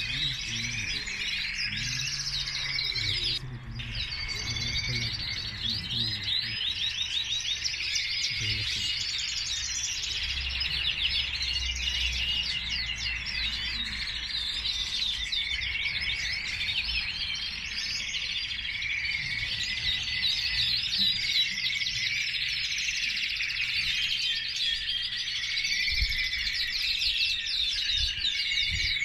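Many caged canaries singing at once, their rapid high trills and chirps overlapping without a break.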